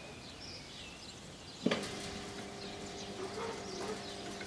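Electric sliding gate motor starting with a click about one and a half seconds in, then running with a steady, even hum as it drives the gate closed.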